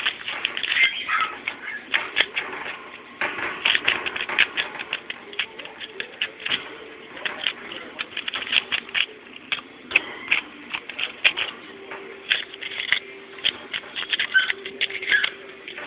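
Crumpled paper crinkling in a hand as it is wiggled and batted, a fast, irregular run of crackles.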